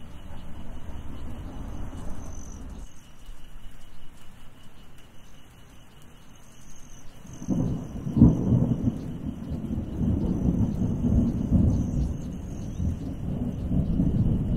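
Thunderstorm: a deep roll of thunder dies away, then about halfway through a sharp thunderclap breaks into a long rolling rumble, over steady rain.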